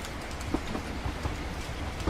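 Train running along the rails, heard as a steady low rumble with irregular clacks and knocks from the wheels and carriage.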